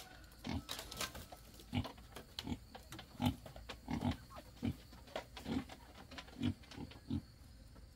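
Domestic pig grunting repeatedly, about ten short grunts spaced irregularly, half a second to a second apart.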